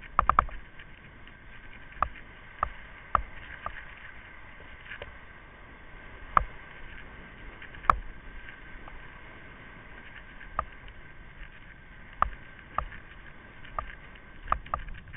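Kite buggy rolling fast over hard beach sand: a steady rushing noise with a faint hum, broken by irregular sharp knocks and rattles as the buggy jolts over the ground, about a dozen in all.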